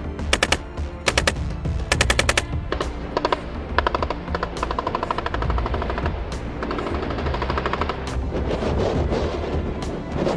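Automatic gunfire in rapid bursts of shots, over background music.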